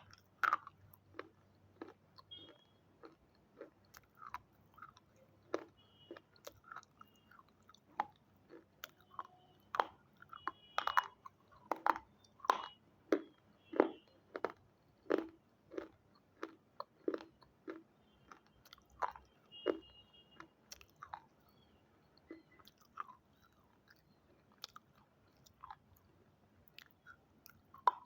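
Crisp crunching of brittle red triangle pieces: irregular sharp crunches, one or two a second, closest together in the middle and thinning out near the end.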